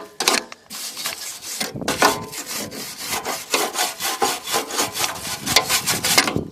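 Rapid back-and-forth scrubbing strokes against the steel lawn mower deck, about three a second, as tar-like undercoating is worked onto it.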